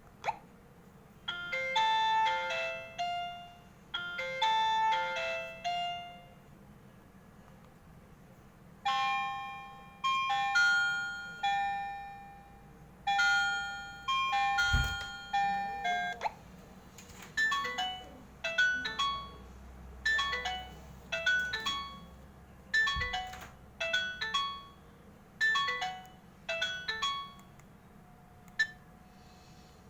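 Built-in ringtones of an HMD 105 keypad phone playing one after another through its small speaker: a short electronic melody played twice, then a longer tune, then a quicker run of short beeping notes, with brief pauses between them. A few sharp clicks come between the tones.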